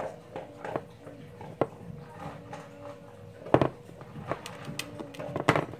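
Knife scraping cream cheese out of a plastic tub and spreading it on a bagel: irregular scrapes and clicks, with a sharp tap about a second and a half in and the loudest knocks about three and a half seconds in and near the end.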